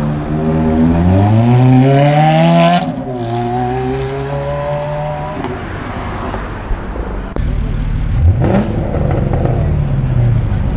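A sports car accelerating hard, its engine revving up, dropping in pitch at an upshift about three seconds in, then revving up again before it fades. After that a lower engine sound runs steadily, with a short rev about eight seconds in.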